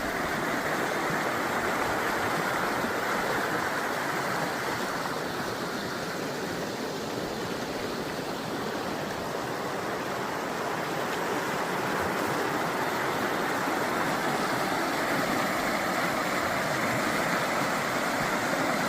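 River water flowing: a steady, even rush that eases a little midway and swells again near the end.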